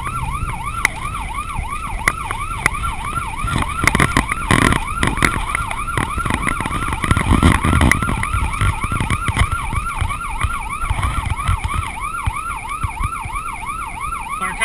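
Police car siren on the fast yelp setting, sweeping up and down about four times a second without a break, over engine and road rumble from the pursuing car. A few sharp knocks come about four to five seconds in.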